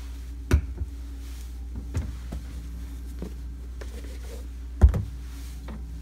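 Condiment bottles and jars being handled and set down on a glass refrigerator shelf: a few short knocks, the loudest about five seconds in, over a steady low hum.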